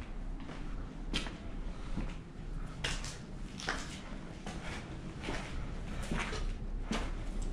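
Footsteps going down concrete stairs littered with rubble and grit, an irregular scuff or crunch roughly every second, over a steady low rumble.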